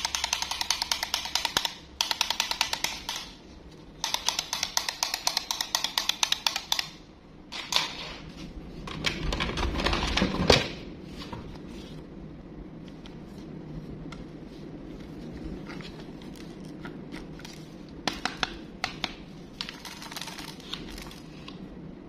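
Clockwork mechanism of a plastic wind-up toy duck clicking rapidly in two runs, with a short break about two seconds in, stopping about seven seconds in. After that comes rubbing and handling of a plastic toy airplane, with one sharp knock about halfway through and a few light clicks near the end.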